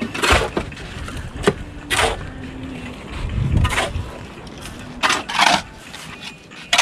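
A series of short scraping strokes, five or six of them at uneven intervals, with a brief low rumble about halfway through.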